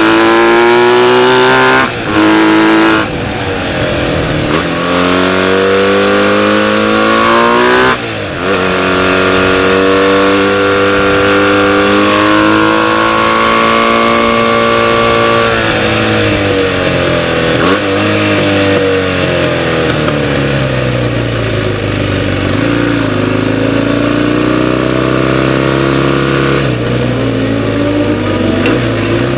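Onboard sound of a vintage BMW flat-twin racing motorcycle at speed. The engine note climbs through the gears with brief breaks at each upshift, then holds on the straight. It falls away as the rider slows and shifts down, and picks up again near the end, with wind rushing over the camera.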